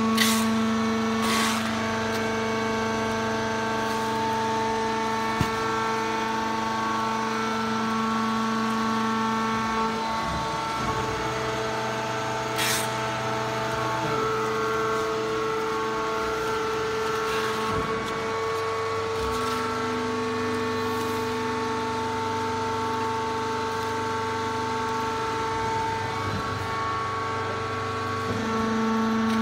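Horizontal bagging baler for wood chips running: a steady machine hum made of several tones, one of which drops out about a third of the way in and comes back later. Short hisses sound about a second in and again near the middle.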